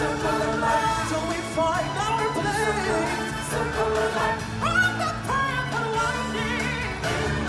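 Amplified stage-show music with singing voices over a full backing accompaniment, played loud through the theatre's sound system.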